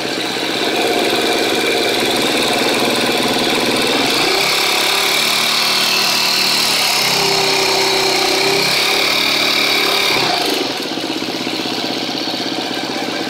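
2013 KTM 250 EXC-F's single-cylinder four-stroke engine idling, then raised to a higher steady speed about four seconds in and held for about six seconds before dropping back to idle. The engine has a ticking at idle that the owner suspects is a bad cam chain tensioner.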